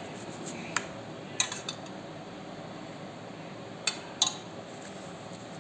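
Utensils clinking against dishes: a few sharp clinks in two clusters, one in the first two seconds and another about four seconds in, over a steady faint background hiss.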